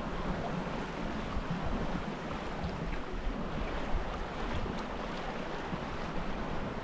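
Water rushing and lapping along the hull of a small sailboat under sail, with gusty wind buffeting the microphone as a low, uneven rumble beneath the steady hiss.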